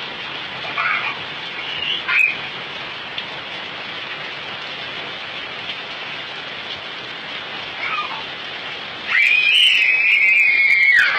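Steady rain falling, with a few short high-pitched calls and one long wavering high call near the end, the loudest sound.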